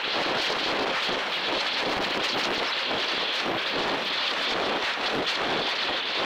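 Steady rushing, buffeting wind noise on a camera's microphone inside a high-altitude balloon's payload box as it climbs.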